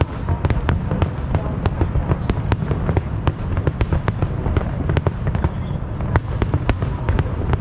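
Aerial fireworks going off in a dense barrage: a continuous low rumble of shell bursts overlaid with many sharp cracks and pops, several a second, at irregular intervals.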